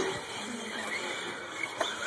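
Radio-controlled short-course trucks running on a dirt track: a faint whine of their motors over an even noise of tyres and surroundings, with a sharp click near the end.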